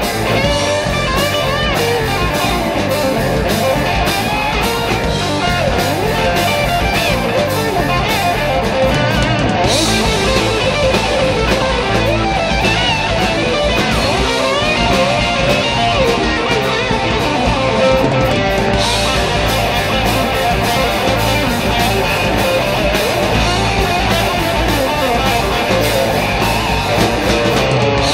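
Live rock band playing an instrumental break: an electric guitar lead line with bent notes over drums and bass keeping a steady beat.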